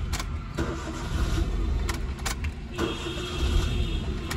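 Maruti Alto K10's three-cylinder engine being started, with a low steady rumble, sharp clicks, and a whirring starter motor in the second half. The starter is freewheeling, not engaging properly, and will need repair.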